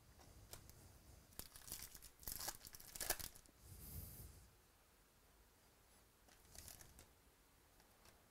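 Foil wrapper of a trading card pack being torn open and crinkled by hand: a cluster of quick tearing and crinkling bursts from about a second and a half in, and another short crinkle near the end.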